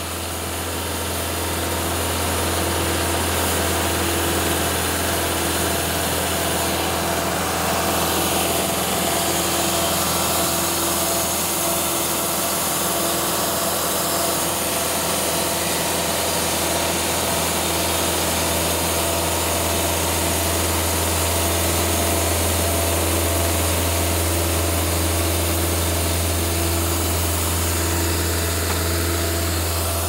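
Cooks AC36 hydraulic portable sawmill running steadily, its engine and band blade making a continuous drone with a strong low hum. The drone gets a little louder over the first couple of seconds, then holds even.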